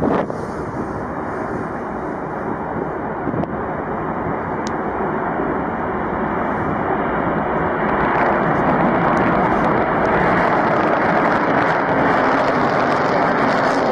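Rockwell B-1B Lancer's four afterburning turbofan engines at takeoff power on the takeoff roll: a steady jet rush that grows louder about eight seconds in as the afterburners light and the bomber accelerates.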